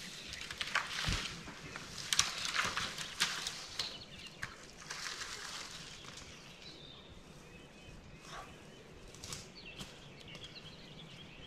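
Footsteps through forest undergrowth: irregular crunching and rustling of leaves and twigs underfoot, busier in the first half and sparser later.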